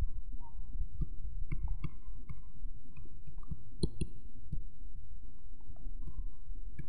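Stylus or pen tapping and scratching lightly on a writing tablet as words are handwritten: small scattered clicks and faint short squeaks over a steady low hum.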